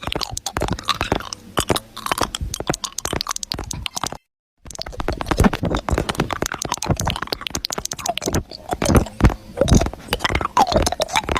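Dense, irregular crunching and crackling, with a sudden cut to silence for about half a second about four seconds in.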